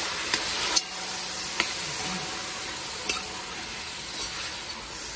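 Stew chicken sizzling in a cast-iron pot as a metal spoon stirs it, with a few sharp clicks of the spoon against the pot in the first three seconds.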